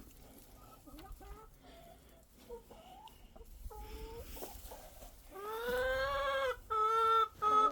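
Domestic hens clucking softly, then one loud drawn-out squawk about five seconds in, followed by three short calls.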